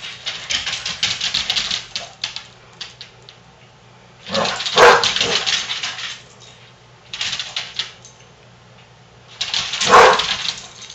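Two basset hounds playing: their claws clatter and scrabble in quick clicks on a hardwood floor, and two loud bursts of barking come about five seconds in and again near the end.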